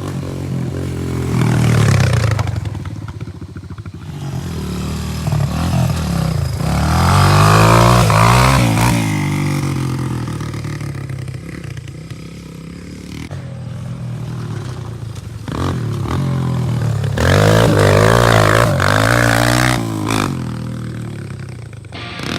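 Kawasaki KLX140 dirt bike's single-cylinder four-stroke engine revving up and down, with three loud surges in pitch and level: about two seconds in, around the middle, and near the end.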